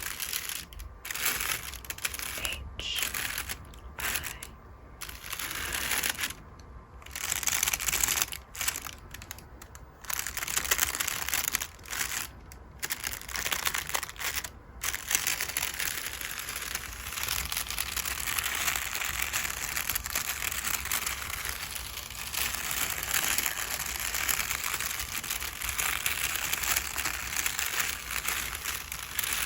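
Makeup brush bristles sweeping over crinkle paper, making a crisp crinkling rustle. For about the first half it comes as short separate strokes with brief pauses between them, then it turns into continuous brushing.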